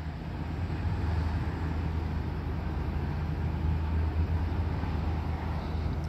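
A car's engine idling steadily: a low, even hum with a faint hiss over it.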